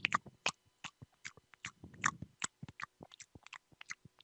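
Close-miked wet mouth sounds in ASMR style: irregular lip smacks and tongue clicks, several a second, with a soft low mumble near the start and again about two seconds in.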